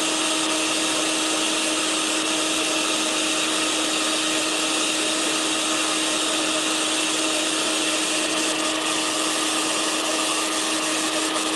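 Electric blender running at a steady speed, mixing plant milk and chia seeds. Its motor holds one steady pitch throughout.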